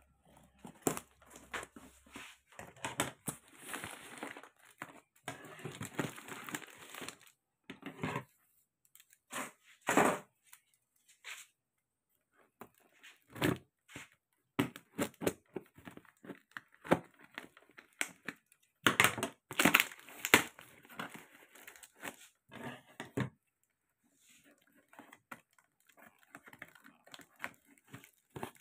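Packing tape being cut and torn off a cardboard box, with crinkling and scraping of tape and cardboard in irregular bursts and short pauses.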